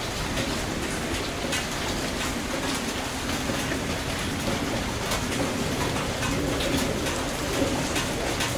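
A litter of puppies suckling at their mother, with scattered small smacking clicks over a steady hiss.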